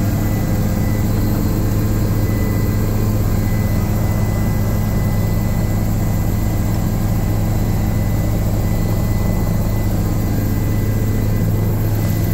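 Helicopter in flight heard from inside the cabin: a loud, steady drone of rotor and engine, with a thin steady whine above it.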